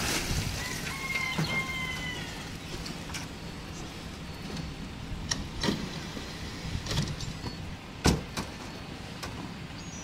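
Wet concrete tipped out of a steel wheelbarrow and spread with a shovel over rebar: a slosh at the start, a short squeak about a second in, then a few sharp metal knocks, the loudest about eight seconds in. A steady low machine hum runs underneath.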